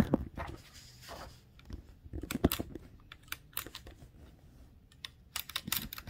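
A 1914 Blickensderfer Featherweight typewriter being worked by hand: scattered sharp mechanical clicks and clacks from its keys and shift mechanism. The clicks come irregularly, with a quick run of them near the end.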